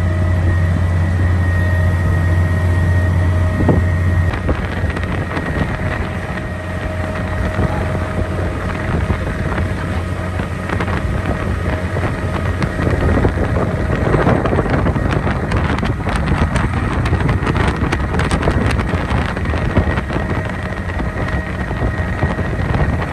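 Tour boat's motor running steadily underway, a low hum with a thin steady whine above it, with wind buffeting the microphone. The hum eases after about four seconds, and the wind noise grows louder in the second half.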